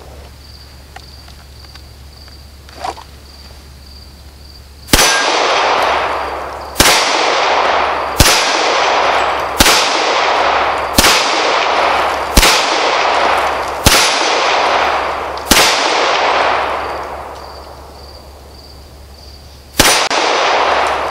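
Handgun shots fired at steel plate targets: eight sharp shots about a second and a half apart, then one more after a pause near the end. Each shot is followed by a long fading ring and clang of steel.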